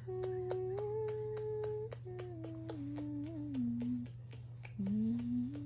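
A woman humming a slow lullaby in long held notes. The first phrase rises slightly, the second steps down, and after a short pause a third phrase rises near the end.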